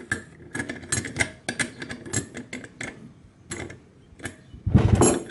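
Pliers working a nut down a threaded lamp rod against a brass vase cap, a run of irregular metal clicks and ticks as the nut is tightened. A louder knock comes near the end.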